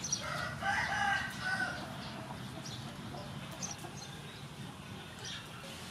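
A chicken clucking in the first two seconds, over a steady low background with scattered faint high ticks.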